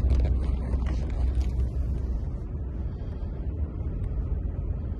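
Road and engine noise inside a moving vehicle's cabin: a steady low rumble that eases off a little after about two seconds.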